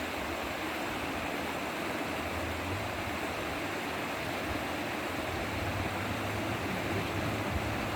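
Steady rushing of the Chattooga River's flowing water, an even hiss that does not change.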